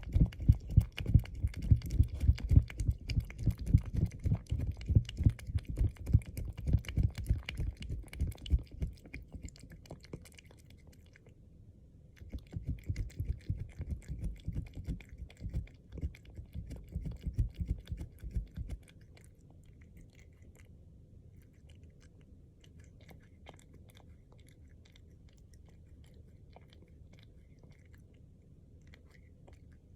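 A cat licking a Chao Churu lickable treat off plastic cling wrap, with rapid wet lapping strokes and low thumps. It stops briefly about ten seconds in, licks again for about seven seconds, then turns to faint, scattered clicks.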